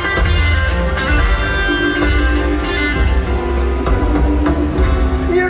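Electric blues band playing live: electric guitar lines over bass and drums with a steady beat, no vocals.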